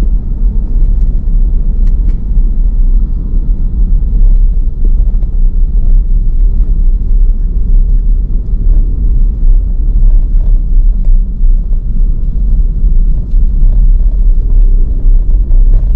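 Loud, steady low rumble that fills the bass, flickering in level, with a few faint ticks on top.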